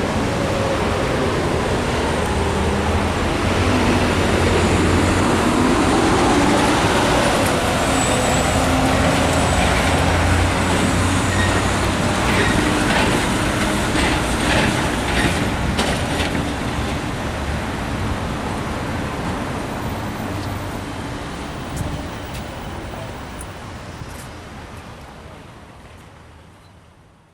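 City street traffic: a steady wash of passing vehicles with low engine hum, fading away to silence over the last several seconds.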